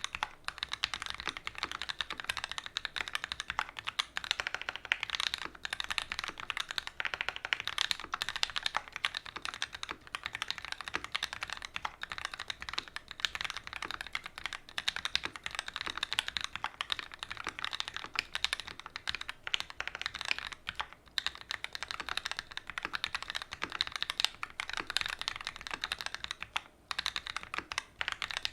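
Continuous fast typing on a custom mechanical keyboard with Gateron Ink Black linear switches, an aluminium plate and GMK TA90 keycaps: a dense stream of keystroke clacks with a few brief pauses.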